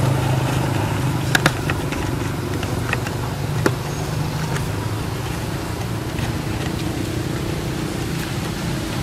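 A steady low mechanical drone, like a running engine, with a few sharp clicks: two close together about a second and a half in, and one more a little after three and a half seconds.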